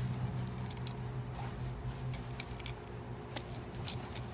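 Nylon mat fabric rustling and crinkling as it is stuffed by hand into its attached pouch, with scattered small clicks, over a steady low hum.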